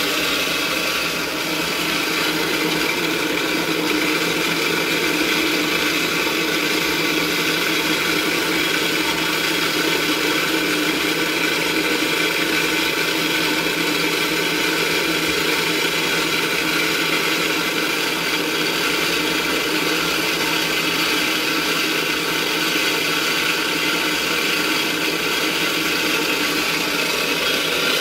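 Electric dry mill grinder running steadily under load, grinding raw rice in its cast-iron grinding head.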